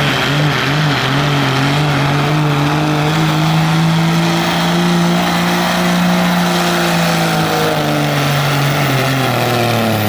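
A 1997 Dodge pickup's Cummins diesel engine held at full throttle while dragging a truck-pulling sled. The engine note holds loud and high, climbs slightly through the middle, then sags over the last few seconds as the sled's load bogs it down.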